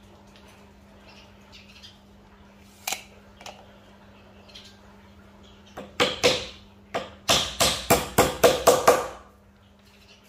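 Hammer driving nails into wood to fix a saw-guide strip to a board: one sharp knock about three seconds in, then a quick run of about a dozen blows, about four a second, over the last few seconds.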